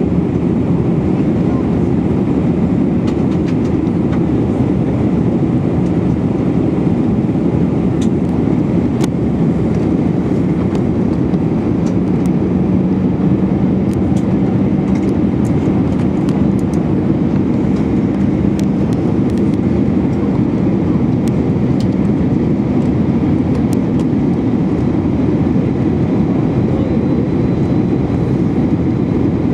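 Steady cabin noise of an Airbus A319 in flight, heard from a window seat beside the wing: the even rush of air along the fuselage mixed with the drone of its CFM56-5B5 turbofan engine, with a faint steady hum in it.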